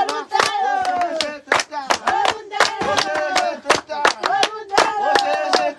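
Hands clapping in a quick, uneven rhythm, several claps a second, over high voices singing long notes that slide downward.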